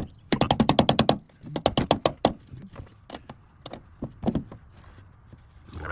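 Hand tools working on a fuel pump assembly: two quick runs of rapid, even clicks, about ten a second, then scattered single taps and knocks.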